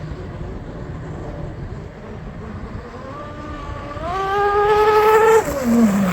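Outrage RC speedboat's motor and propeller whining under full throttle. The pitch rises steeply about four seconds in, holds high at its loudest for about a second, then falls away near the end as it comes off the throttle.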